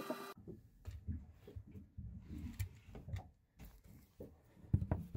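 Faint, irregular knocks and clicks of handling, with a sharper cluster of clicks near the end. A steady hum cuts off suddenly just after the start.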